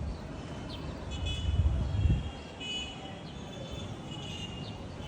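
Outdoor background: a low rumble that swells and dies away about two seconds in, with several faint, short, high bird chirps scattered through.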